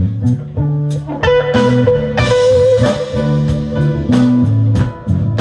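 Live electric blues band playing: guitar over a bass line and a steady drum beat, with a long held note coming in about a second in.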